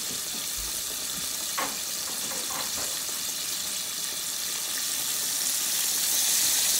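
Dry-battered fish fillets deep-frying in hot oil in a pot: a steady bubbling sizzle that grows louder near the end.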